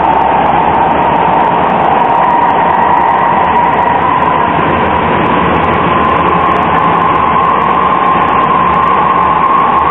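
Croydon Tramlink tram running on its rails, heard from the driver's cab: a steady rumble of wheels and track with a whine that rises slowly in pitch as the tram gathers speed.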